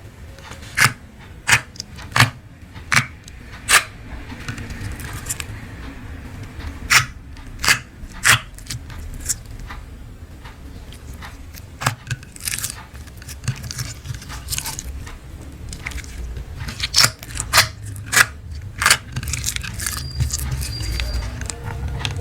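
Scissors snipping through plastic piping bags: a string of sharp, irregular snips and crinkles, with a quick run of them in the first few seconds and another about three-quarters of the way through.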